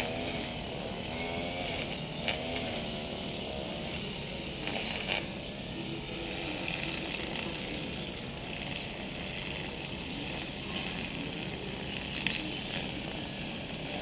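A motor engine running with a wavering pitch over steady outdoor background noise, with a few sharp clicks.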